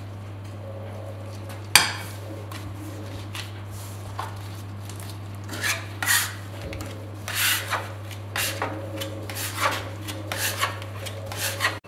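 Bench scraper scraping crumbly dough across a countertop in irregular short strokes, mostly in the second half, with one sharp knock about two seconds in.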